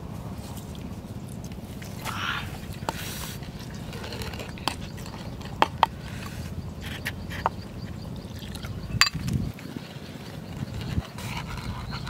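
Wooden pestle knocking and mashing wet chili sauce in a wooden mortar: a few sharp, unevenly spaced knocks over a steady low rumble.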